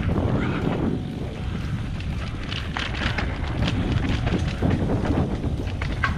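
Wind rumbling on the action camera's microphone during a mountain bike ride on a dirt trail, with tyre noise and the bike rattling. A run of short clicks and rattles comes in the middle and another near the end.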